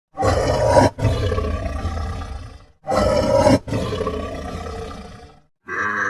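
A big cat roaring twice. Each roar starts loud and fades away over about two and a half seconds. Near the end a short call from a different animal begins.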